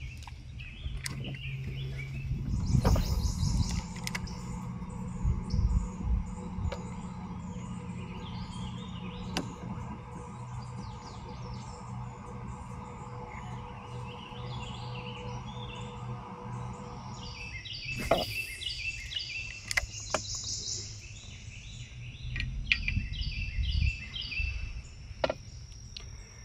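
Songbirds singing in the trees along a wooded river: series of repeated bright chirping notes, busiest in the second half. Underneath is a steady low hum of outdoor background noise with a few scattered clicks.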